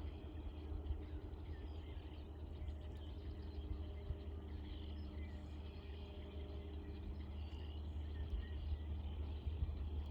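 Faint, scattered chirps of small birds calling, over a steady low rumble.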